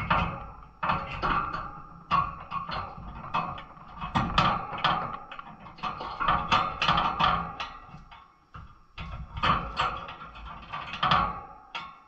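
Irregular clicks, knocks and rattles of small birds moving about a wire cage, landing and clinging on perches and wire.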